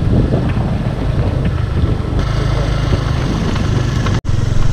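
Motor scooter engine running at a steady pace while riding, heard from on the scooter. The sound cuts out briefly about four seconds in.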